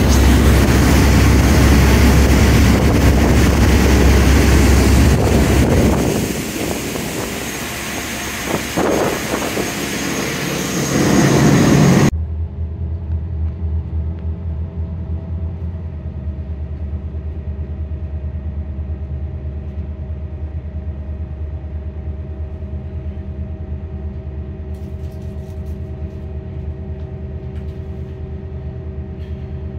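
Motorboat running fast: engine rumble under loud rushing water and wind on the microphone. About twelve seconds in it cuts to the boat's engine running slowly and steadily, a low even drone with a steady hum.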